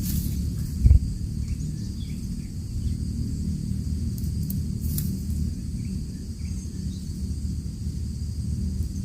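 Field ambience of steady high insect chirring over a low rumble, with a dull thump about a second in and a sharp click about five seconds in.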